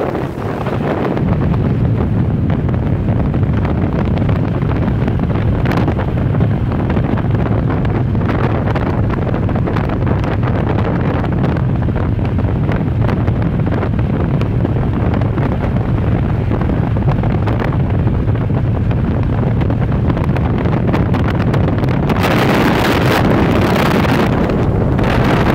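Wind rushing over a phone microphone on a moving motorcycle, mixed with the motorcycle's running engine and road noise. The wind rises to a louder hiss for a few seconds near the end.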